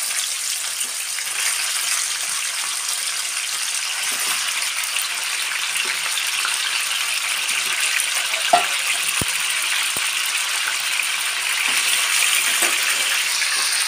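Raw chicken pieces sizzling steadily in hot oil in a stainless-steel kadai. A few sharp clicks sound about two-thirds of the way through.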